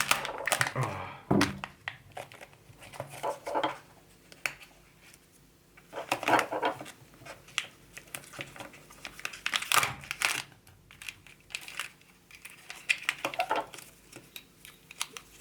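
Crinkling and tearing of Kinder Joy wrapping and toy packaging being opened by hand, in short irregular bouts with pauses between.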